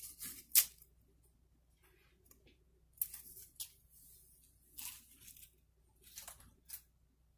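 Crisp homemade fried potato chips crackling and crunching in short, sharp bursts, the loudest about half a second in, then a few more spaced a second or two apart.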